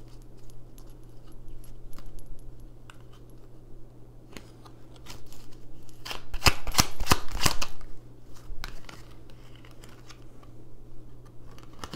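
Tarot cards being shuffled and handled: scattered light clicks and flicks, with a dense run of rapid card snaps about six to eight seconds in, over a steady low hum.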